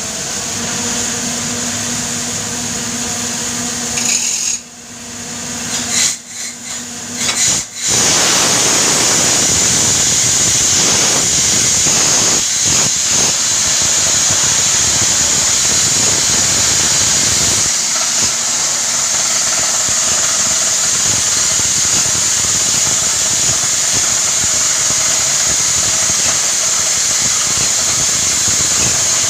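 Borewell drilling rig and its air compressor running: steady machine noise with a strong high hiss. The noise drops and sputters for a few seconds around the fifth second, then comes back in full and holds steady.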